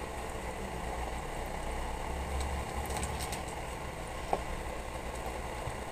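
Faint clicks of plastic LEGO bricks being handled and pressed together: a few soft clicks around the middle and one sharper click about two-thirds through, over a steady low hum.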